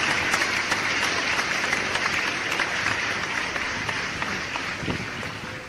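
Applause: many hands clapping together, fading away near the end.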